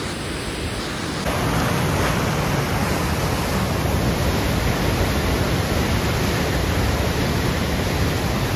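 Water rushing steadily down a large canal, an even noise that gets louder about a second in.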